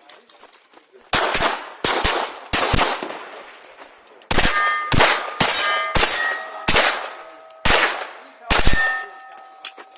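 A string of pistol shots, about a dozen: a few close pairs, then single shots roughly half a second to a second apart. Steel plate targets ring out with a clear metallic tone after the later hits.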